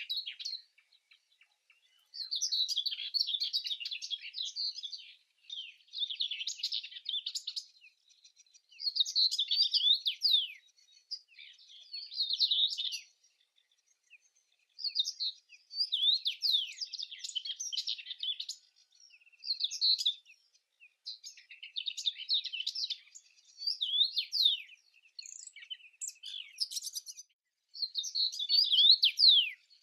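A songbird singing a run of rapid, high-pitched twittering phrases with quick sliding notes, each phrase lasting one to three seconds, with short pauses between them, about ten phrases in all.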